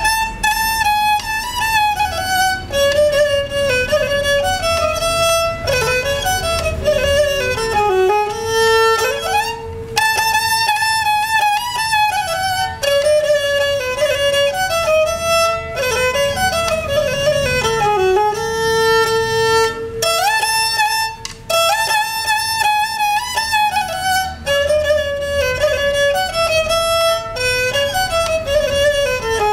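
Nepali sarangi, a bowed folk fiddle, playing a solo melody with sliding notes, the same phrase returning about every ten seconds.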